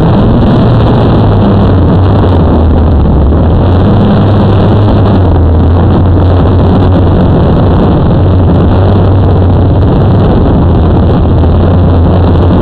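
Loud, steady whir of a camera drone's propellers and motors, picked up by its own onboard microphone, with a strong low hum under the rushing noise as it descends.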